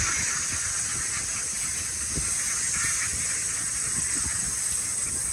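Outdoor field ambience: a steady high-pitched hiss with an uneven low rumble beneath it.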